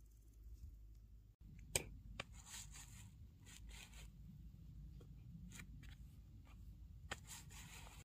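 Faint rustling and scraping of dry plant fibres being rolled between palm and thigh into cord, in short scratchy spells, with a sharp click about two seconds in.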